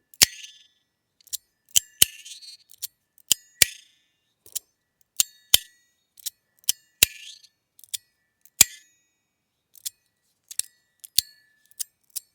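Sound Emperor tuning-fork fidget slider with small tuning forks fitted, slid back and forth by hand: loud sharp metallic clacks, about one or two a second at uneven spacing. Many clacks ring briefly with a high tuning-fork tone, and a few carry a short buzzing rattle.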